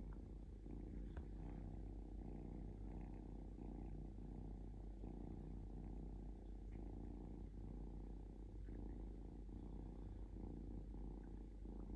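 Kitten purring close up: a continuous low rumble "like a motorbike", with brief dips about once a second.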